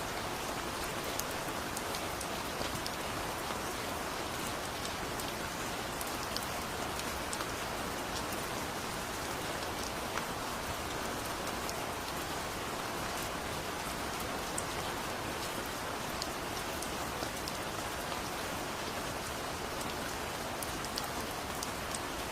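Steady heavy rain falling on a surface, a continuous hiss with scattered sharp drop ticks.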